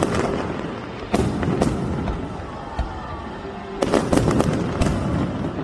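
Aerial fireworks bursting: sharp bangs over steady crackling, with single bangs about a second in and a quick cluster of bursts around four seconds in.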